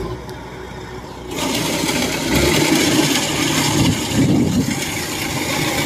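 Tracked rice combine harvester running as it crawls down into the paddy. A little over a second in, a loud rushing noise comes in suddenly and holds over the engine.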